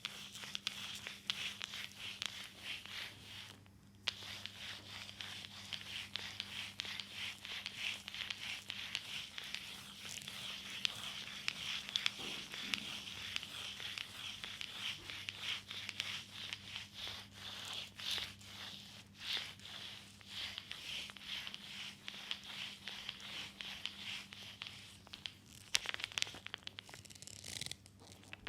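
Oiled hands rubbing and kneading a leg in a reflexology massage: a steady crackly, slick rustling with many small clicks, over a faint low hum.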